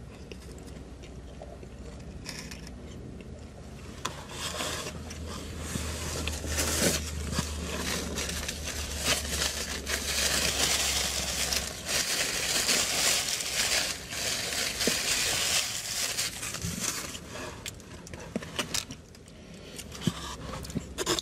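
Paper napkin rustling and crinkling as it is unfolded and handled, with scattered small clicks, over a low steady hum that stops about twelve seconds in.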